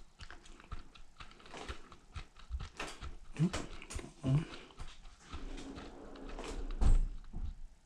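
Scattered clicks and knocks from working a front-load washer's control panel, with two short rising whines in the middle and a heavy thump near the end.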